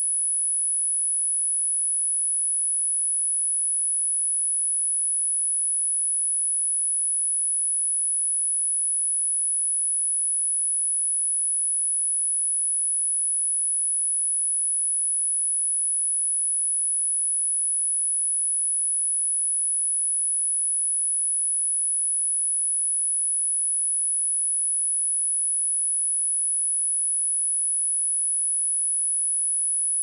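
A single pure sine-wave test tone, high-pitched at roughly 10 to 11 kHz, held perfectly steady in pitch and level. It is a speaker test and cleaning tone.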